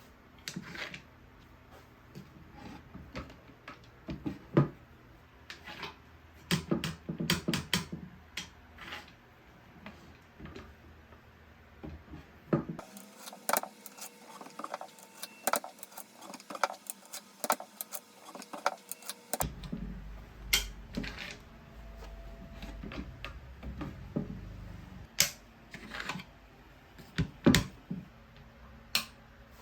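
Irregular wooden clicks and knocks from a handmade wooden lock mechanism being worked, its parts snapping and tapping as it locks and unlocks.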